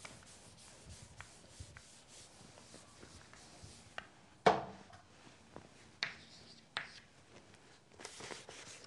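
Faint rubbing and rustling of paper and clothing as a sheet of paper is handled at a chalkboard, with a few short clicks and one sharper knock about four and a half seconds in.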